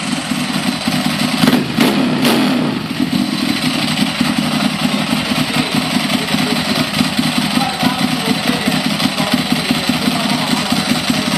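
Ducati Monster's V-twin engine running through a Termignoni exhaust at a steady idle, with a brief rise in revs, two quick throttle blips, about one and a half seconds in.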